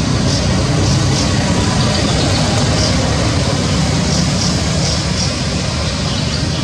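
A loud, steady low rumble, with no clear beginning or end.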